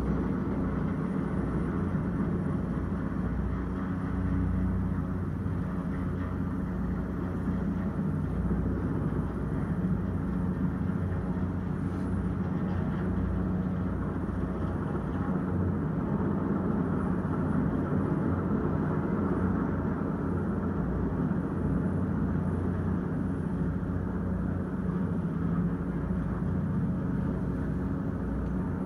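Helicopter hovering during a rooftop lift, heard as a steady low drone of rotor and engine, muffled through a closed window.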